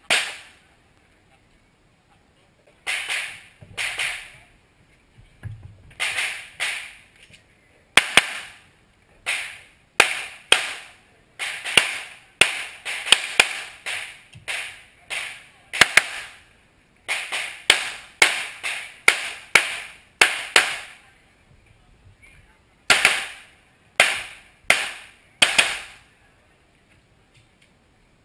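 Handgun shots fired in quick strings of two to five, each sharp crack trailing a short echo, as a shooter engages targets through a practical-shooting stage. The firing stops briefly about a second in, again about two-thirds of the way through, and near the end.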